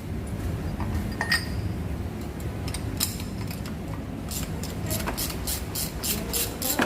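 Metal hand tools clinking as they are handled during a spark-plug change, ending in a run of quick, fairly even clicks, over a steady low rumble.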